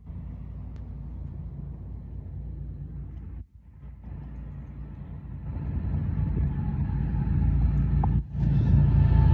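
Diesel freight locomotives of an approaching Union Pacific train rumbling, getting louder over the last few seconds. The sound drops out briefly twice.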